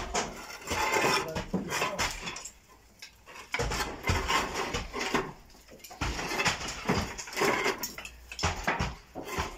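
Roof tiles clinking and clattering as they are lifted and handled on the roof, with knocks against the wooden battens, in irregular bursts.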